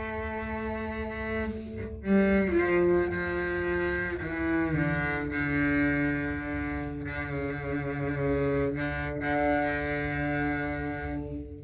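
Double bass played with a bow: a slow, descending line of long held notes, several sounded two at a time, with vibrato on the later notes.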